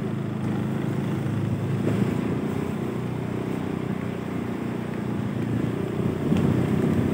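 Steady low engine hum, even and unchanging.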